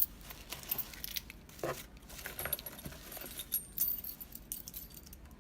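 Metal padlocks, lock cylinders and keys clinking and rattling against each other as they are rummaged through in a box, in irregular sharp clinks and knocks.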